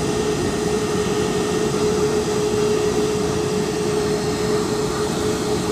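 Airliner turbine noise on an airport ramp: a steady rushing with one constant high whine through it.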